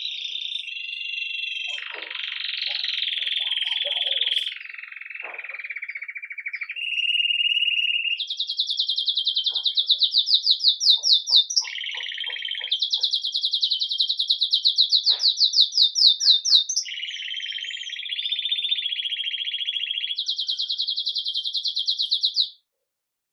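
Belgian canary (red mosaic agate) singing a continuous song in the 'campainha' (bell) style: long held trills and rolls, some of them fast and pulsing, switching every few seconds between lower and higher phrases. The song cuts off abruptly near the end.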